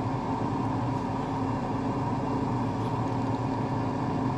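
Steady hum of a bench fume extractor fan running.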